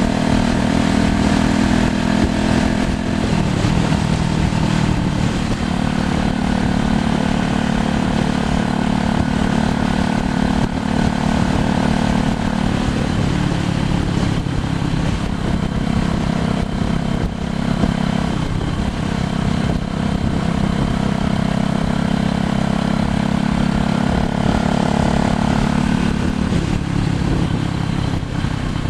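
A small engine running steadily, its pitch stepping up and down a few times, over a constant rush of wind noise.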